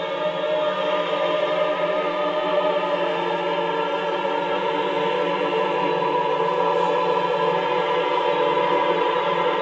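Background choral music: voices holding long, steady chords.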